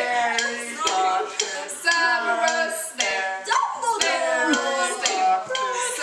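Several young people singing a rhythmic chant together.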